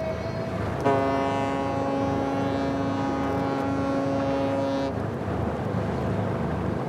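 A ship's horn sounds one long, steady blast that starts suddenly about a second in and lasts about four seconds, over a low steady rumble on the water.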